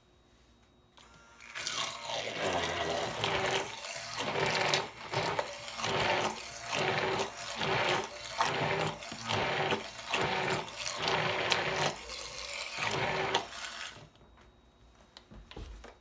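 Hand-held immersion blender pureeing a thick mixture of raw chicken, egg and cheese in a plastic measuring cup. The motor whirs in pulses of about a second, starting a second in and stopping near the end.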